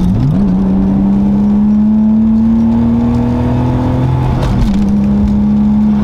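Nissan Laurel's turbocharged RB20DET inline-six, heard from inside the cabin, pulling hard in gear with its pitch climbing, then a quick upshift about four and a half seconds in before it pulls on. On its new ignition coil packs it runs cleanly, with no misfire or breaking up.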